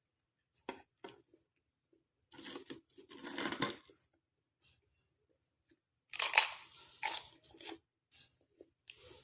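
Close-miked eating sounds from a bowl of bakso meatball soup: an irregular series of short, noisy bursts of chewing and mouth noise, the loudest and longest about six seconds in.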